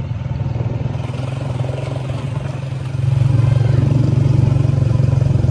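Motorcycle engine running steadily while riding along a road, getting louder about three seconds in.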